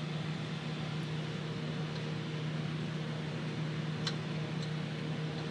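Steady low machine hum with a constant low tone, and two faint ticks about four seconds in.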